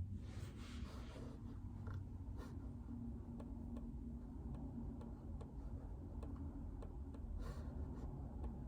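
Soft, irregular keystrokes on a JJK84 mechanical keyboard with Outemu Silent Peach linear switches, muted light ticks over a steady low hum. A short scratchy rustle comes at the start and another near the end.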